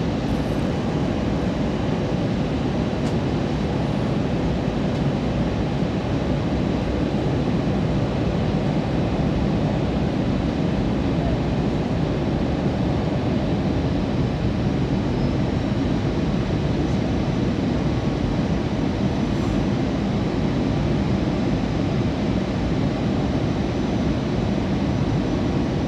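Airbus A320 cabin noise in flight: a steady low rush of engines and airflow heard from a window seat inside the cabin, with a faint steady whine on top.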